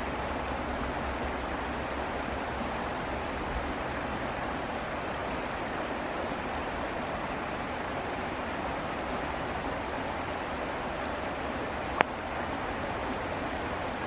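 Fast-flowing shallow stream rushing steadily over stones, with one sharp click near the end.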